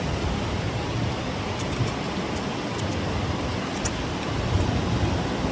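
Steady rushing outdoor background noise, with a few faint light clicks about one and a half to four seconds in.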